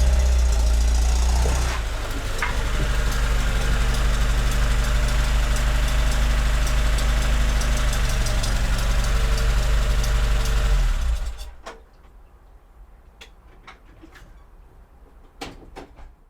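VAZ 2107 (Zhiguli) engine running steadily, then switched off about eleven seconds in, leaving a few faint clicks. It is a worn engine that knocks and smokes.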